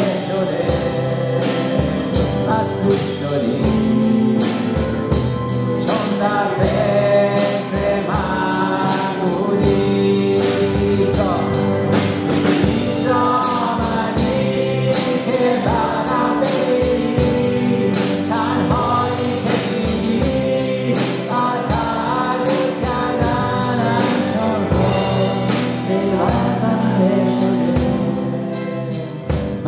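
A worship song in gospel style: several voices singing together over piano and keyboard, with a drum kit keeping a steady beat.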